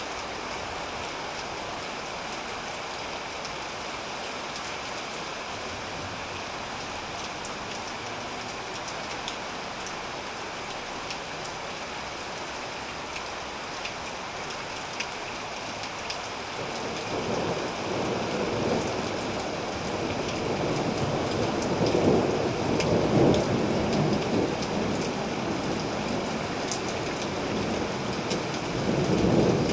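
Steady rain pattering, with scattered individual drops. About halfway in, a long roll of thunder builds and rumbles on, swelling twice toward the end.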